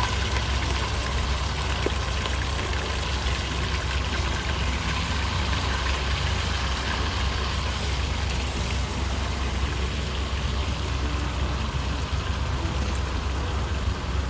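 Beef chunks sizzling and frying in a deep pot of very hot oil, a steady crackling hiss, over a constant low rumble.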